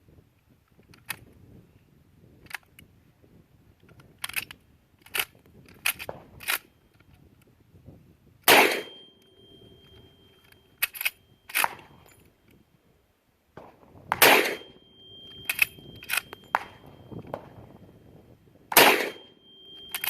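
Mossberg 464 .30-30 lever-action rifle fired three times, the shots a few seconds apart, with smaller metallic clicks and clacks between shots as the action is worked. A steady ringing tone hangs on for two to three seconds after the later shots.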